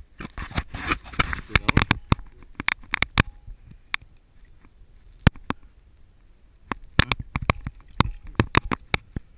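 Irregular sharp clicks and taps of water lapping and splashing against a waterproof camera housing held at the surface, in two clusters with only a few single taps in the middle.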